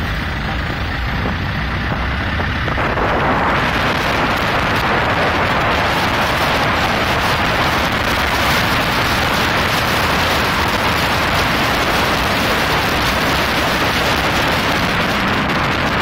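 Steady rush of wind and road noise from a moving vehicle, growing louder and hissier about three seconds in.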